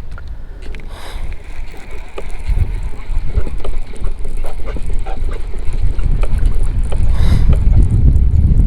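Wind rumbling on the microphone on a kayak out on the water, growing louder, with scattered light knocks.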